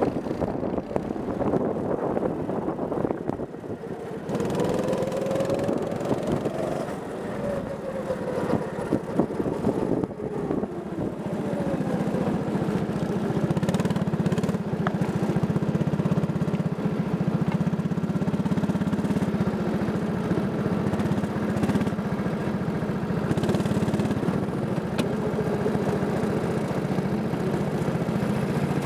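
Go-kart engine heard from the driver's seat, its pitch rising and falling as it revs through corners. After about twelve seconds it settles into a steadier, lower running tone.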